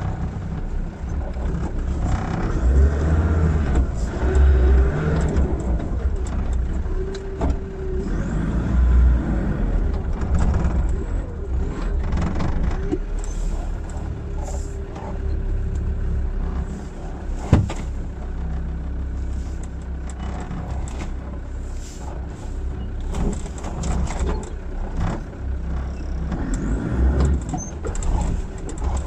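Land Rover Defender Td5's five-cylinder turbodiesel engine running at low speed while the vehicle crawls over a rough off-road track. Scattered knocks and rattles come from the body and suspension, with one sharp knock a little past halfway.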